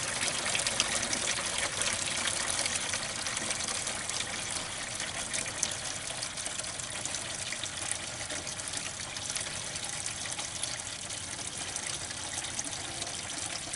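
Toilet flush water pouring steadily out of the end of a drain pipe into an open hole, slowly tapering off. It is the flushed load coming through the line.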